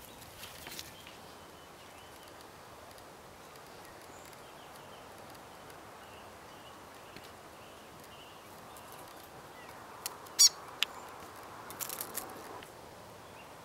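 New Zealand fantail calling: faint high cheeps scattered through the first half, then one sharp, loud, squeaky call about ten seconds in, with a few short clicks and rustles around it.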